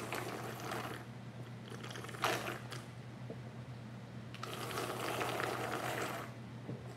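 Slurping watermelon juice out of a hollowed-out half rind, in separate sucking pulls: one at the start, a short one after about two seconds, and a longer one from about four and a half to six seconds.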